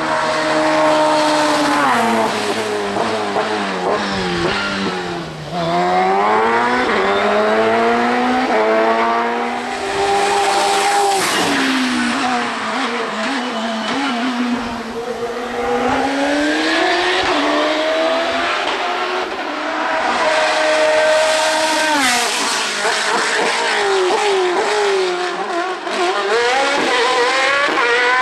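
Hill-climb racing car engine at full throttle, its pitch climbing hard as it revs and dropping sharply between shifts, several times over.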